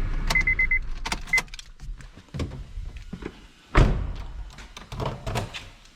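A car being lowered back onto its wheels: a low hum that fades out, a quick run of high beeps near the start, then a series of mechanical clicks and clunks, the loudest a thump about four seconds in.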